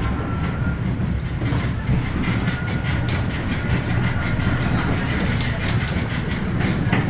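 Konstal 105Na tram running on rails, heard from inside the car: a steady low rumble of wheels and running gear with light rattling, and a thin high whine that comes and goes.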